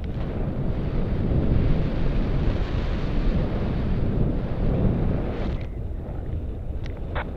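Airflow from a paraglider's flight buffeting the action camera's microphone as a steady rumbling rush. It eases a little after about five and a half seconds.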